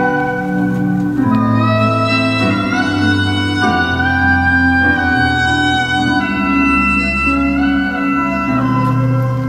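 Gagaku wind instruments, sho and hichiriki, playing a slow melody of long held, reedy notes that step from pitch to pitch. Beneath them runs a low, sustained accompaniment that changes chord every second or two.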